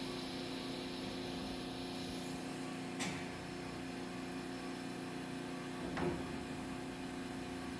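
CNC multi-tasking machine running with a steady hum made of several constant tones, with a sharp click about three seconds in and a duller knock about six seconds in.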